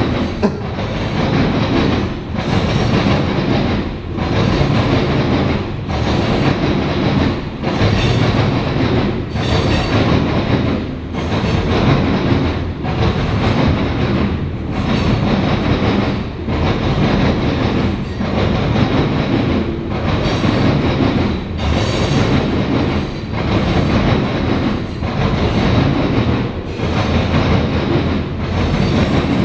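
Freight cars of a CSX grain train rolling past at speed: loud steady wheel-on-rail rumble and clatter that swells and dips in a regular rhythm, roughly every one and a half to two seconds as each covered hopper car goes by.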